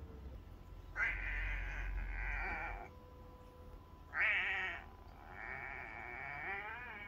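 A cat meowing up at the camera three times: a long meow about a second in, a short, louder one about four seconds in, and a long meow wavering in pitch near the end.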